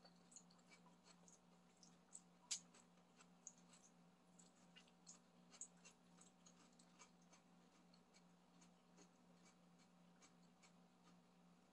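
Faint eating sounds: scattered small clicks and light scrapes of wooden chopsticks against a bowl of black-bean noodles, with soft chewing, over a steady low hum.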